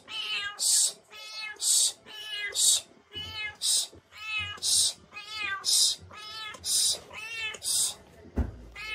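Long-haired kitten meowing over and over, about once a second, each wavering call followed by a short breathy hiss. A low thump comes near the end.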